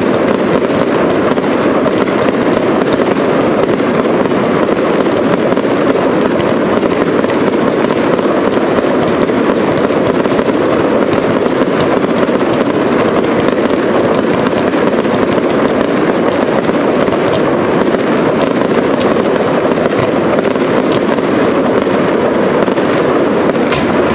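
Aerial fireworks display: shells bursting and crackling in a dense, continuous barrage, with many sharp cracks over a steady rumble.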